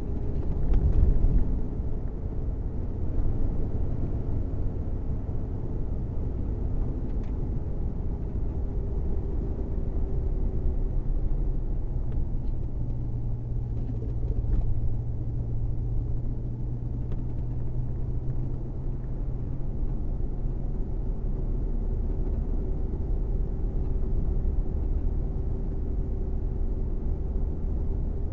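Steady low driving rumble of a 1979 Lincoln Mark V under way, from inside the cabin: tyre and road noise mixed with the V8 running at cruise, with a faint steady hum over it. It swells briefly about a second in.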